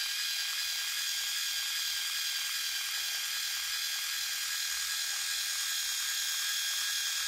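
Conair Quick Twist hair-twisting tool running steadily, its small electric motor and gears giving a high-pitched whine as it spins two strands of yarn to twist them into fringe.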